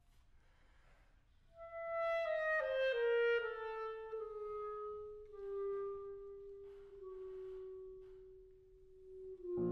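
Solo clarinet playing a descending run of notes after a brief pause, then settling onto a long held low note; the piano comes in just before the end.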